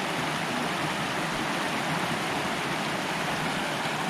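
Steady rush of creek water flowing over rocks, an even, unbroken noise.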